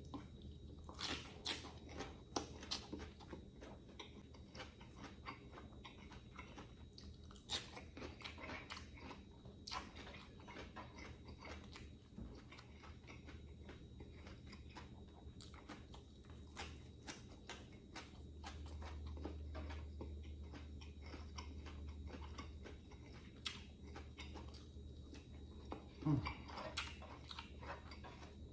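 A person eating close to the microphone: chewing and biting, with scattered crisp crunches at an irregular pace.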